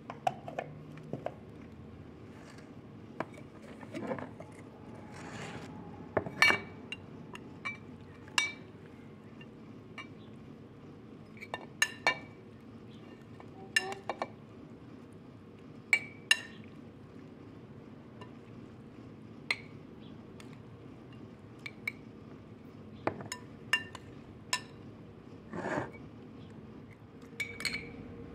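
Metal spoon clinking and tapping against a glass bowl and a glass jar at irregular intervals as a grated vegetable pickle is spooned into the jar, with a few softer scrapes in between.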